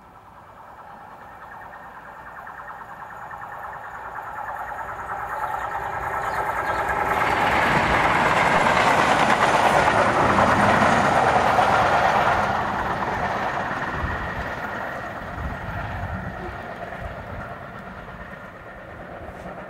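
A Class 56 diesel locomotive running light at speed past the listener. Its engine drone and wheel-on-rail noise swell as it approaches, are loudest about halfway through, then fade as it draws away.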